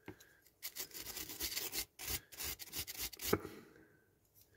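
Small handheld steel wire brush scrubbing the bare, paint-stripped diecast metal body of a toy car in quick scratchy strokes, with one sharp click a little after three seconds and a short lull near the end.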